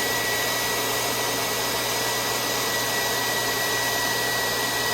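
Electric blower running steadily, a constant rush of air with a thin high whine from its motor.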